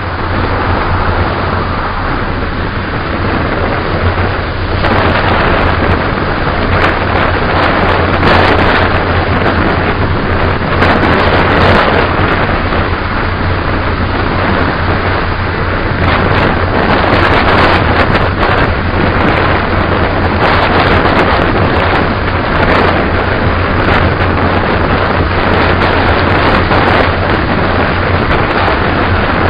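Wind buffeting the microphone: a loud, continuous rushing rumble that swells in gusts every few seconds.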